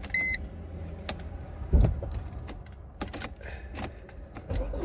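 Car keys jangling and clicking at the ignition of a 1999 Mercedes C230, with one short electronic beep from the instrument cluster just after the start. A low rumble begins to build near the end.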